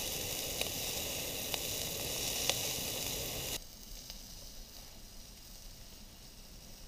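Cut-up hot dogs sizzling in a pot on a camping stove, a steady frying hiss with a few sharp pops. The sizzle cuts off suddenly about three and a half seconds in, leaving a much quieter background.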